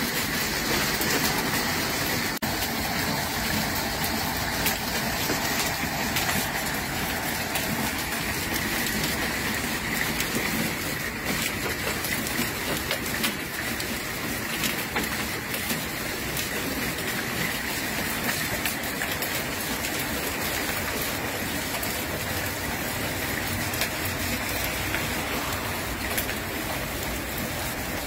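Heavy rain and hail falling on garden beds and paving: a dense, steady hiss with many small sharp ticks of hailstones striking.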